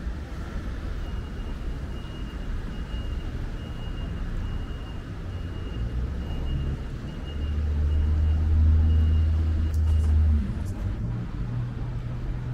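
City street traffic: a motor vehicle passes close, its low engine rumble swelling to the loudest point about three-quarters of the way through and then dropping away suddenly. A faint, thin, steady high whine runs under most of it, and a couple of short clicks come near the end.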